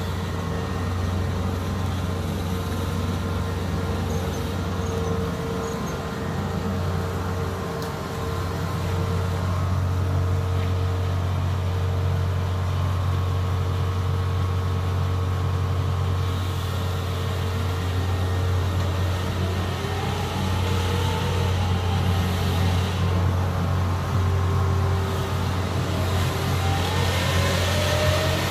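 Kubota DC-70 combine harvester's diesel engine running steadily as it drives along on its tracks, growing a little louder, with a whine that rises in pitch in the last few seconds.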